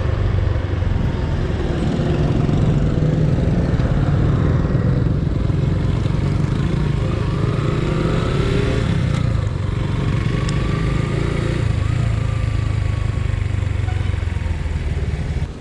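Suzuki Gixxer 150's single-cylinder engine running steadily while the bike is ridden along the road.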